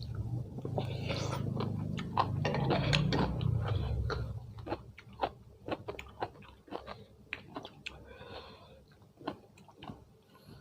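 A person chewing food close to the microphone, with crunching and many sharp wet mouth clicks and smacks. It is heavier and louder for the first four seconds or so, then settles into scattered clicks.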